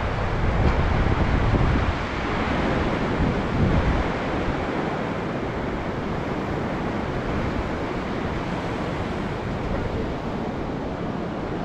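Sea surf washing onto the beach in a steady rush, with wind buffeting the microphone in a low rumble for the first few seconds before easing.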